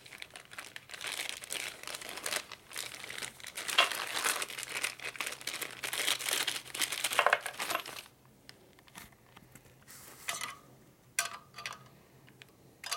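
Clear plastic bags crinkling and rustling as hands rummage through them for spoke balance weights, then a few light clicks and taps in the last few seconds.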